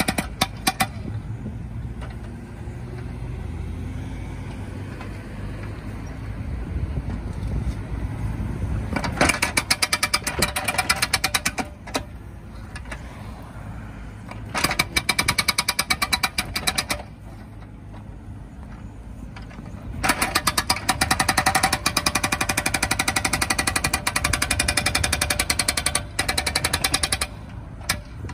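Demeter 85 hydraulic breaker on a Bobcat E19 mini excavator hammering at a street surface in repeated bursts of rapid blows, each a few seconds long and the longest near the end. The excavator's engine keeps running between the bursts.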